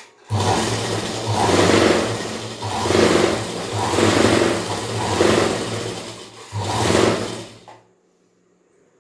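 Motor-driven domestic straight-stitch sewing machine stitching cloth: the electric motor hums and the needle mechanism clatters. It speeds up and eases off about once a second, dips briefly near the end, then stops.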